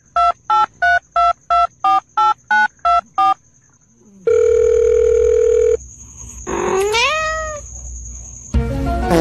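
Ten quick telephone keypad dialing beeps, each at a different pitch, as a finger pokes a cat's face like buttons. Then a steady telephone tone for about a second and a half, and near the end a cat meows once.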